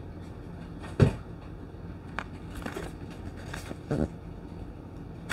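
Handling noise from a cardboard camera box being turned over in the hands: a sharp knock about a second in, then a small click, soft rubs and a double thump near the end, over a steady low background hum.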